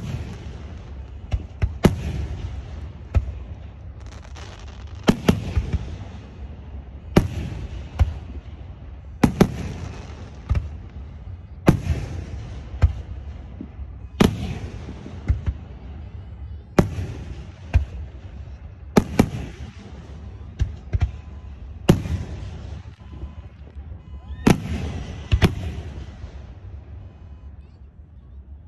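Aerial fireworks shells bursting one after another, a sharp bang every second or two, each trailing off in an echo.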